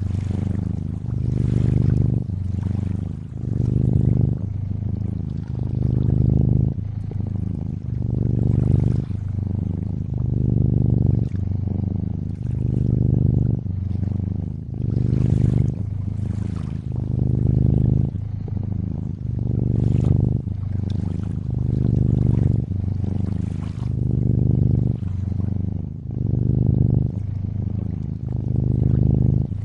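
A cat purring steadily, swelling and easing about every second or two with its breaths, over gently trickling lake water.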